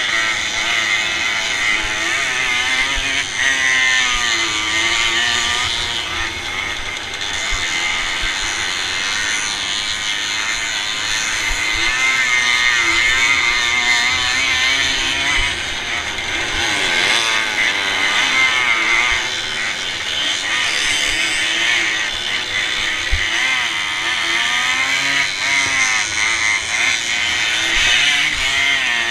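Onboard sound of a small two-stroke racing motorcycle, its engine revving up and down and its pitch rising and falling through corners and gear changes, with other bikes running close by and wind buffeting the microphone.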